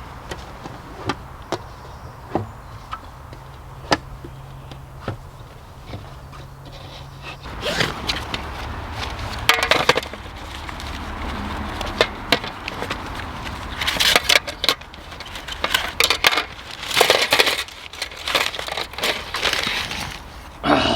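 Camping cooking gear being handled and set out: scattered light clicks and knocks, then from about eight seconds in, repeated longer bursts of rustling and scraping.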